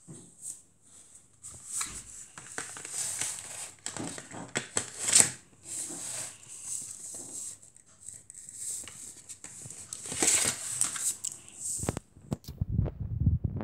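Plastic rustling and clicking of felt-tip markers being handled in their plastic box, with one sharp click about five seconds in. A low rumbling bump follows near the end.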